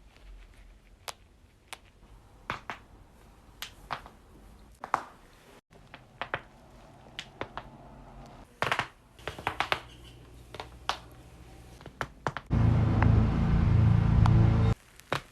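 Joints being cracked: a long series of sharp cracks and pops, some single and some in quick clusters. Near the end a loud steady buzz runs for about two seconds.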